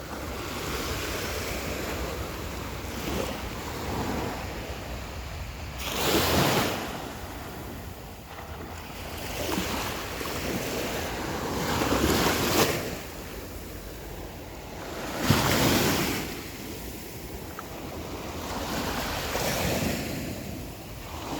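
Atlantic Ocean surf breaking on a sandy beach, the waves swelling and crashing in repeated surges every few seconds, with wind buffeting the microphone.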